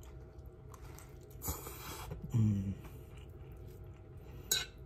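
A person eating pancit noodles: quiet chewing, a short noisy slurp about a second and a half in, then a brief hummed "mm". Near the end a metal fork clicks against the glass food container.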